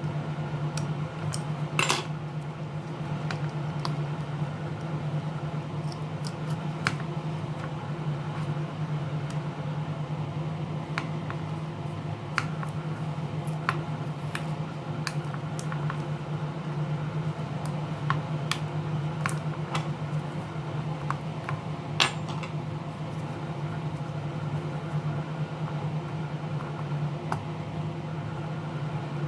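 Scattered small clicks and taps of repair tools and loose parts against a tablet's glass and metal frame during hands-on disassembly, over a steady low hum.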